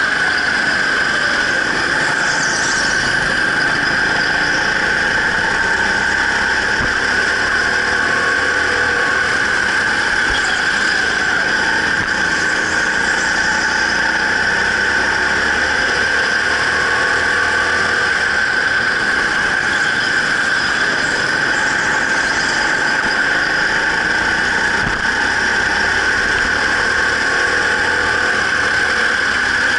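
Go-kart running at racing pace, with a steady high-pitched whine that hardly changes in pitch.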